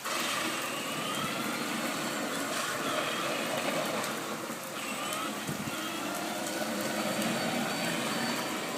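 Heavy rain falling steadily, with the whine of a child's ride-on tractor motor gliding up and down in pitch as it drives around.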